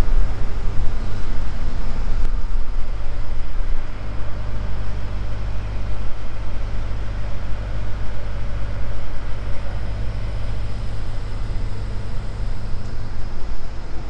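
Steady low engine hum with road traffic noise, a little louder during the first few seconds.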